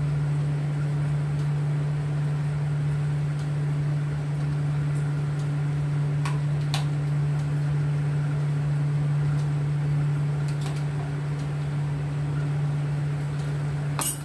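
A steady, even machine hum, like a running fan or motor, with a few faint clicks in the middle and a sharper click just before the end.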